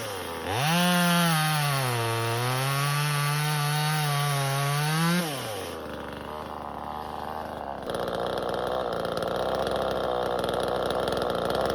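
Neotec NCS2500 top-handle two-stroke chainsaw at full throttle cutting through a maple log, its pitch dipping and wavering under load. About five seconds in the throttle is released and the engine drops to idle. It gets louder and rougher about eight seconds in.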